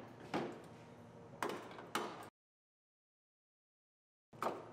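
A few sharp knocks and clatters from hands working a wiring harness and parts inside a bare SUV liftgate, then about two seconds of dead silence, then another knock near the end.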